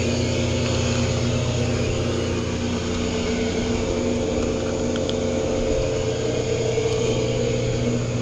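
Hot tub jet pump running with a steady hum, water churning and bubbling from the jets.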